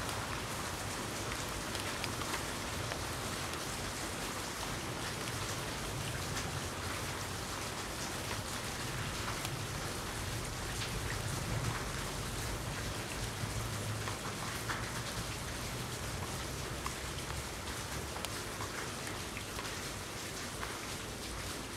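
Steady rainfall: an even hiss of rain with scattered individual drop ticks.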